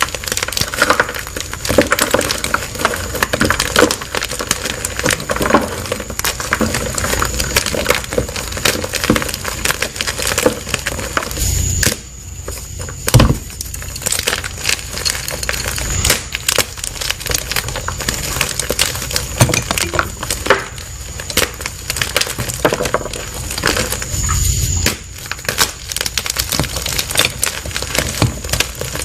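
Blocks of plain white gym chalk being crushed: a dense, continuous run of crunching and crackling, with one especially loud crunch about halfway through.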